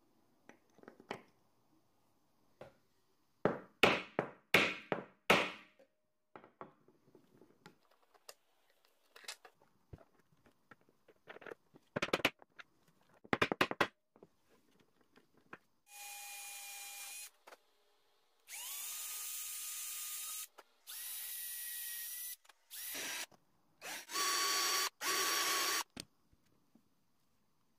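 Wooden mallet striking a steel snap-setting tool: a quick run of about five sharp blows, then a few more, setting brass snap fasteners through leather straps. After that, a small electric drill runs in five short bursts, the last the loudest.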